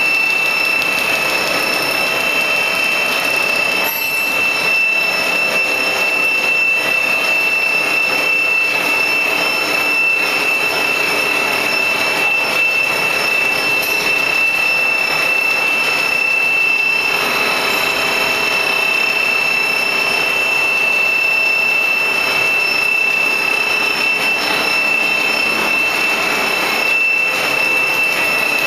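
Plastic sheet-making machine running steadily, a constant high-pitched whine over dense mechanical noise.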